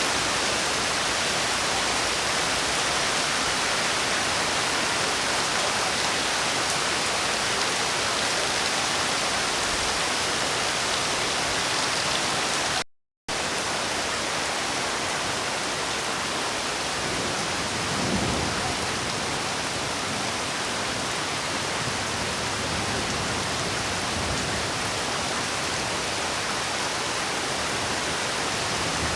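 Steady rain falling, an even hiss, broken by a split-second dropout to silence about 13 seconds in. A brief low rumble comes about 18 seconds in.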